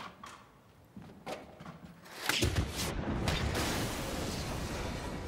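An explosion bursts against the wall of a house about two seconds in, with several sharp cracks in its first second, then a long deep rumble with debris. A few faint knocks come before it.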